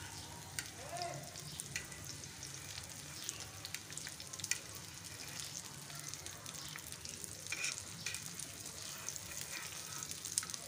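Shami kababs sizzling as they shallow-fry in oil on a flat griddle, with scattered pops and crackles. A metal spatula scrapes briefly now and then as the kababs are turned.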